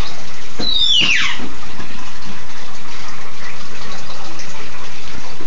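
Steady running-water noise from an aquarium filter pump. About a second in, a short high squeal falls quickly in pitch.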